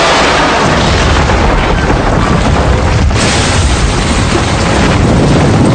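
Cartoon explosion sound effect: a loud, continuous rumbling blast, with a brief drop about halfway through.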